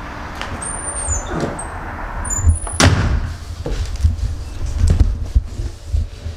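Handling noise as a cardboard parcel is picked up and moved about: uneven low bumping and rubbing, with a few knocks and one sharp knock about three seconds in.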